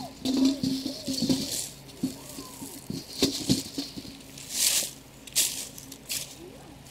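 Irregular clattering knocks and rattles with bursts of rustling, like objects being handled and knocked together.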